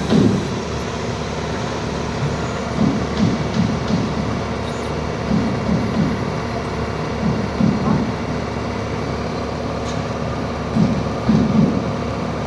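Steady mechanical hum and noise, typical of machinery running in a workshop, with low rumbling pulses that recur every second or so.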